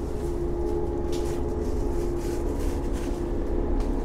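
Steady low rumble and hum inside a stationary diesel railcar, its engine idling.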